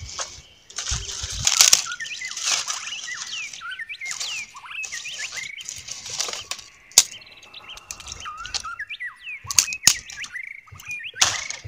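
Dry sticks and twigs being snapped by hand among crunching dry leaves, with several sharp cracks in the second half. Birds chirp repeatedly.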